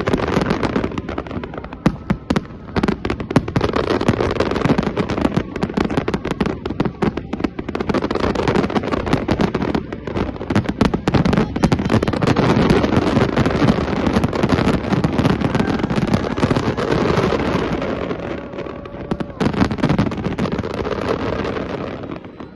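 Fireworks display: a dense, continuous barrage of bangs and crackling, thinning a little in the last few seconds.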